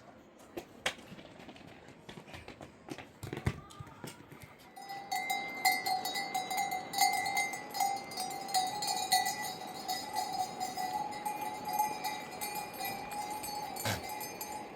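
Livestock bells on a herd of goats, clanking and jingling continuously as the animals move, starting about five seconds in after a few faint knocks.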